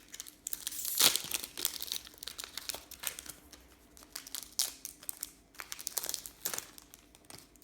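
Foil trading-card pack wrappers crinkling and cards being handled, a run of irregular crackles and flicks, the loudest crinkle about a second in.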